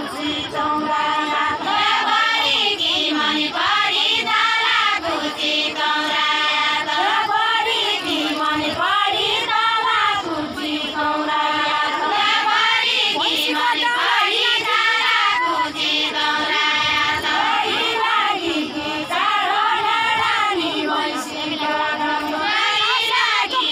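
A group of women singing a Deuda folk song together, in long drawn-out phrases that rise and fall and repeat, with no instruments or beat.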